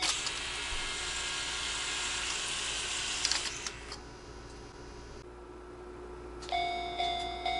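A steady hiss with a few clicks near its end stops after about three and a half seconds. About six and a half seconds in, a Japanese railroad crossing warning bell starts ringing in steady electronic tones.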